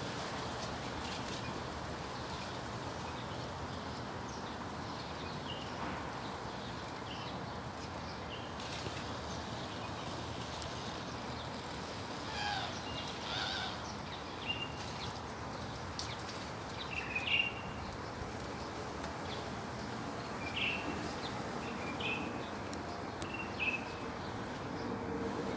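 Strong wind blowing steadily, with short bird chirps scattered through the second half.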